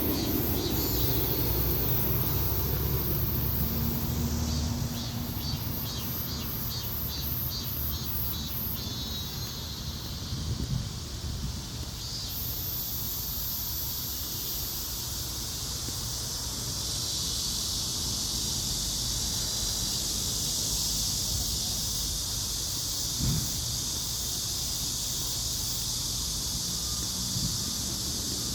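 Insects chirping in a fast, even pulse for the first several seconds, then a steady high-pitched insect drone from about halfway through, over a low rumble of wind.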